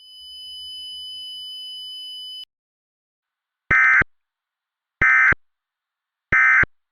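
Emergency Alert System end-of-message signal: three short, loud, buzzy bursts of SAME digital data tones, about a second and a half apart. Before them a steady high-pitched tone cuts off about two and a half seconds in.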